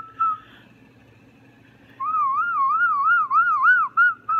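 Moluccan cockatoo whistling. A short whistled note trails off at the start. About two seconds in comes a warbling whistle that swings up and down about three times a second and ends in a short held note.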